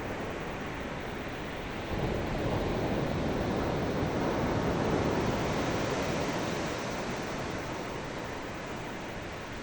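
Ocean surf: a wave swells in about two seconds in, peaks in the middle and slowly washes back out, over a steady low rumble of the sea.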